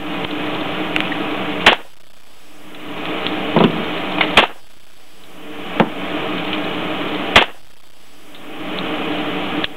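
Single gunshots at a shooting range, fired one at a time: four loud shots about one to three seconds apart, with a couple of fainter shots between the first two. The steady background hiss cuts out briefly after each loud shot.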